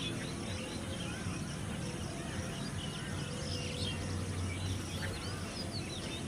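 Small birds chirping and calling here and there, short high notes and trills, over a steady low outdoor rumble.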